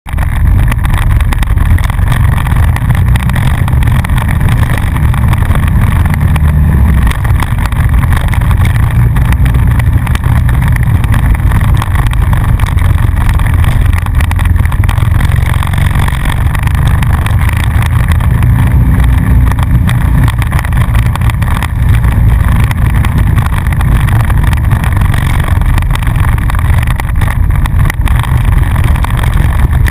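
ATV engine running under load as the quad rides a rough dirt trail, heard loud and close from on board: a steady low engine note with noise over it.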